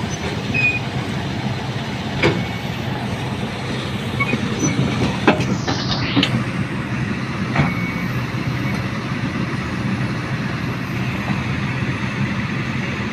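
Excavator's diesel engine running steadily while its steel crawler tracks clank and squeak as the machine moves, with a few sharper metallic clanks.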